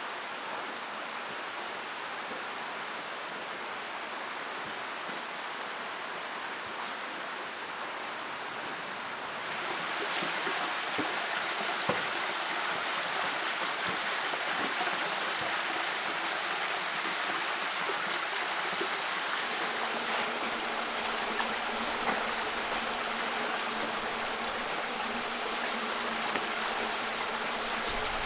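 Shallow stream running through a sandstone slot canyon and splashing down small rock ledges; steady, getting louder and brighter about ten seconds in. A few soft knocks in the middle.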